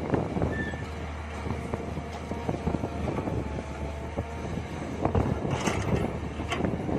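Mini excavator working: its engine runs steadily under constant rattling and knocking, with a faint whine in the middle and sharper clanks a little after that.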